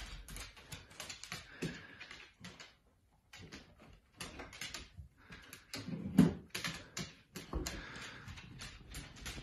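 A dog's claws clicking and tapping on a hard kitchen floor as it walks about, with a louder thump about six seconds in as the refrigerator door is pulled open.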